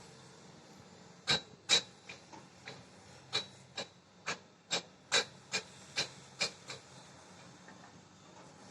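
Pet budgerigar making a run of about a dozen short, sharp scratchy clicks, roughly two a second, for about five seconds, over a faint steady hiss.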